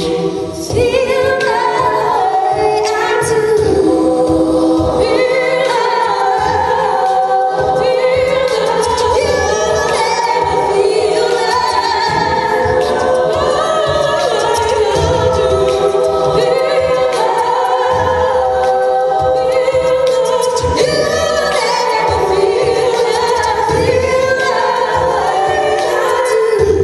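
All-female a cappella group singing live in close harmony, with sustained, shifting chords over a steady low vocal-percussion beat.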